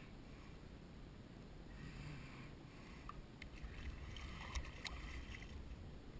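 Water splashing and sloshing as a speckled trout is gripped and handled in a rubber landing net at the water's surface, with a few sharp clicks between about three and five seconds in.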